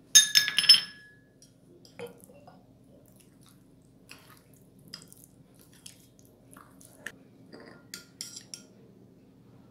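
A metal spoon clattering against a ceramic bowl with a brief ringing clink in the first second, then light, scattered clinks and scrapes as it stirs a runny raspberry jelly mixture, with another short run of ringing clinks near the end.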